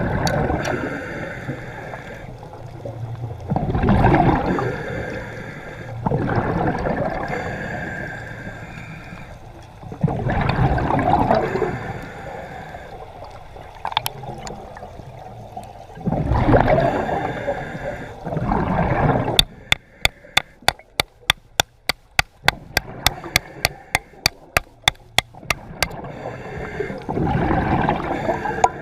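Water sloshing and gurgling in surges every few seconds, with a fast run of sharp clicks, about five a second, for several seconds near the end.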